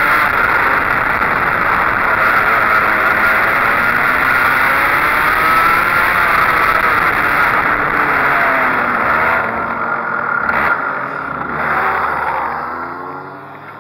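Go-kart engine heard from on board at racing speed, its pitch rising and falling through the corners, with wind rushing past. Over the last few seconds the engine note drops and fades as the kart slows.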